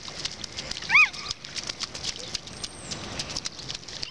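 A child's short, high-pitched squeal about a second in, over scattered light splashes of bare feet in shallow rain puddles.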